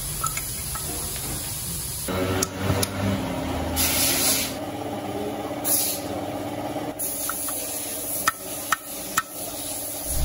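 Repeated bursts of hissing air over a steady hum, with a few sharp metallic clicks near the end.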